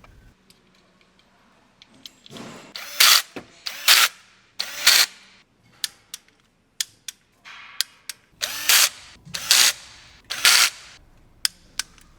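A power tool runs in short bursts, three in quick succession and then another three, with sharp metallic clicks between them.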